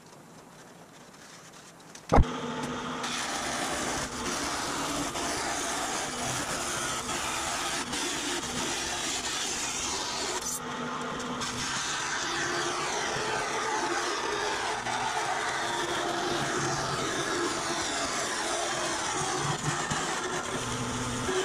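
Vertical bandsaw running and cutting through the aluminum sheet of a car body cowl, a steady machine sound that starts with a sharp knock about two seconds in. Before that, only faint shop room tone.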